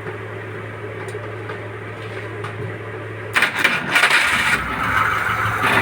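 Steady low hum, then about three and a half seconds in a Suzuki F6A three-cylinder engine is cranked and catches, running on loudly after its timing belt has been refitted.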